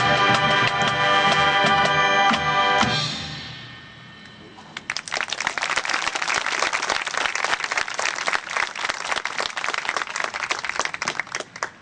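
High school marching band's brass and drums holding the final chord of the opener, which cuts off about three seconds in. About a second later the audience claps for roughly seven seconds.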